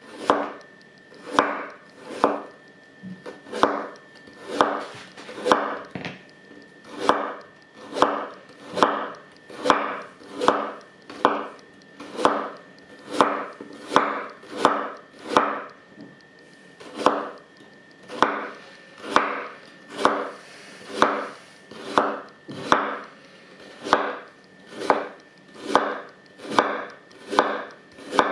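Kitchen knife chopping food on a wooden cutting board: even knife strikes through the food onto the wood, a little under one per second.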